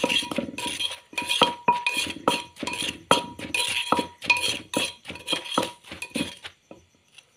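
A pestle and a metal spoon knock and clink in a clay mortar as dried mushrooms are pounded and mixed into chili seasoning. The strokes come at about two to three a second and stop about a second before the end.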